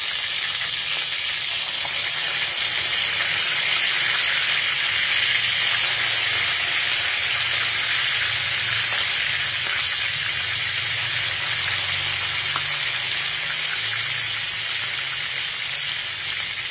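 Small whole fish frying in hot oil in an aluminium wok: a steady, loud sizzle that grows a little louder as more fish go into the oil.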